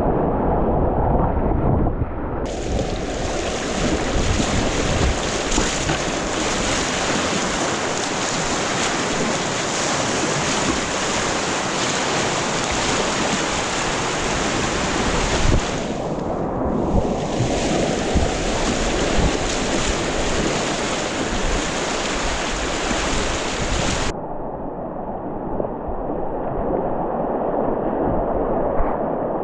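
Whitewater river rapids rushing continuously around a kayak, heard from the boat itself. The sound is dull and muffled for the first couple of seconds and again for the last five or so, and bright and hissy in between.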